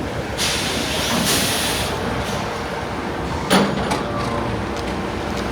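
Heavy-vehicle street noise with a steady low rumble. About half a second in comes a loud hiss lasting over a second, and a sharp clank about three and a half seconds in.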